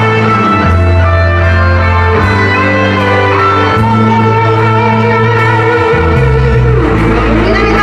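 Live band playing an instrumental passage: electric guitar over bass guitar and drums.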